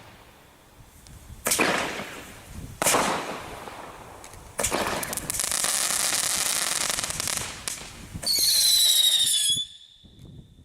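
Consumer fireworks from a selection box going off. Two sharp bangs trail away, then a steady rushing hiss runs for about three seconds. Near the end a shrill whistle, falling slightly in pitch, cuts off suddenly.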